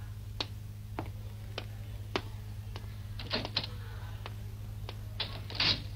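Cartoon footsteps of a man walking at a steady pace, about one and a half sharp steps a second, with louder clacks about halfway through and near the end as a wooden door is opened.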